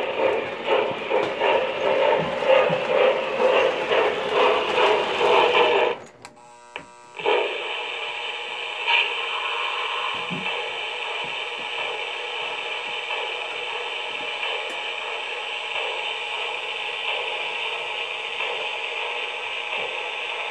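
O gauge model trains running on three-rail track: a loud pulsing sound for about six seconds cuts off abruptly, then, after a short lull, a steady hum of wheels and motors.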